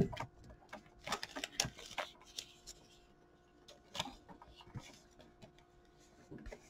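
Faint, scattered rustles and light clicks of stiff clear plastic as an oversized trading card is slid into a plastic display holder, with short quiet gaps between them.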